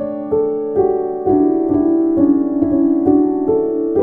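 Background piano music: a gentle melody with new notes struck about twice a second, each ringing and fading over sustained lower notes.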